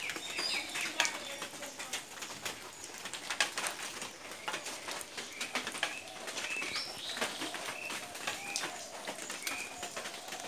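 Birds calling: short high chirps repeating every second or so, with lower curved calls underneath, and many short clicks throughout.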